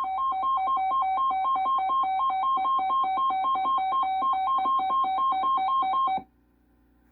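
Emergency Alert System alert tone: a loud electronic tone alternating rapidly between two pitches, about four times a second, signalling an incoming severe weather warning. It cuts off sharply about six seconds in.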